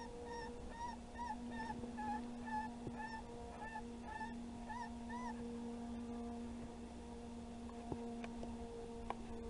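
Repeated short, high yelping calls, about three a second, each rising and falling in pitch. They stop about five seconds in, leaving a steady low hum.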